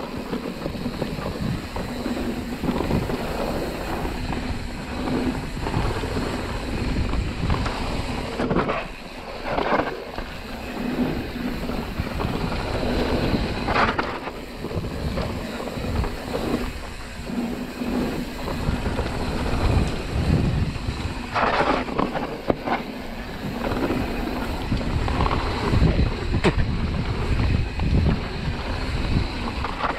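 Mountain bike descending a dirt singletrack at speed: steady wind rush on the microphone and tyre roar over dirt and leaves, with the bike clattering over bumps several times.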